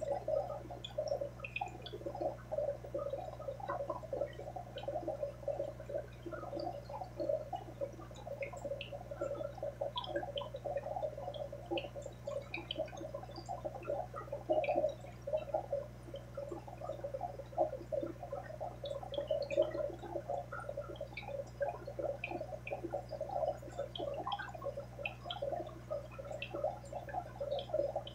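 Aquarium water bubbling and gurgling continuously, with small pops and drips, over a steady low hum.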